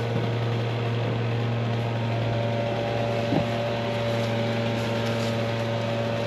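An engine running steadily with an even, unchanging hum, and one short knock about three and a half seconds in.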